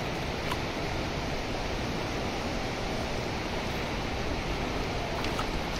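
River water rushing steadily, an even noise that neither rises nor falls.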